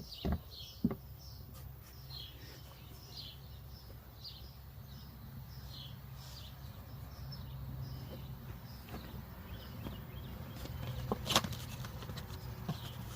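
A bird chirping over and over, short falling chirps about one or two a second. A low steady hum runs underneath, and a few sharp clicks or knocks come near the start and about eleven seconds in.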